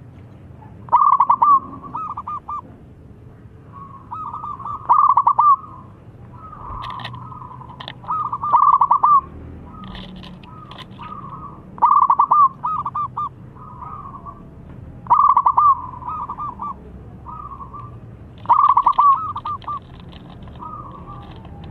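Zebra dove singing repeatedly: six loud phrases of rapid staccato cooing notes, about one every three and a half seconds, with softer notes between.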